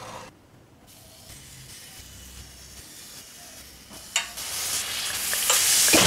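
Pancake batter sizzling on a hot electric griddle as it is squeezed out of a squeeze bottle. The hiss grows steadily louder toward the end, with one sharp click about four seconds in.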